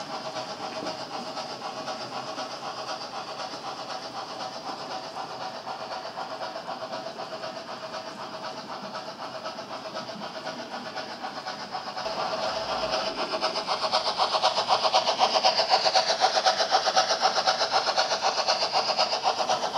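HO-scale model tank-wagon train running along the track, a steady rolling rattle of wheels on rail. About twelve seconds in it grows louder and busier, with a rapid rhythmic clatter and hiss, as the BR 50 steam locomotive model draws near.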